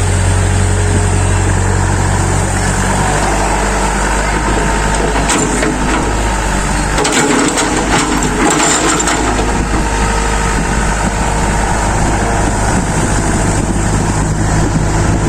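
Excavator at work: its engine running steadily, with a stretch of crunching and cracking knocks from the bucket digging into dirt in the middle.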